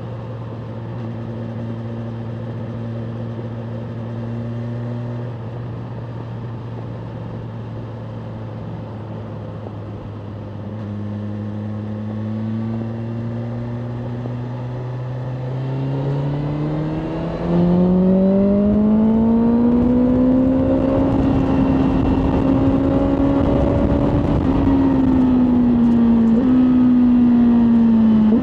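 BMW M1000R Competition's inline-four engine running at steady cruising revs, then the throttle opens about halfway through and the revs climb steeply, holding high with a brief step in pitch near the end. A rushing noise grows louder as the bike speeds up.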